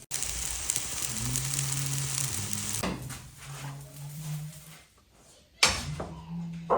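Thin pancake batter sizzling in a hot frying pan, loud for about the first three seconds and then dying down, with two sharp knocks near the end.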